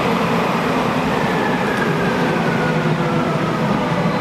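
Nuremberg U-Bahn DT1 train pulling into the underground station. Its wheels rumble steadily on the rails, and from about a second in a motor whine falls slowly in pitch as the train slows.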